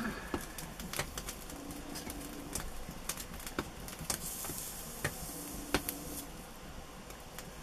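Irregular small clicks and crackles throughout, with a low buzz that comes and goes twice, for about a second each time.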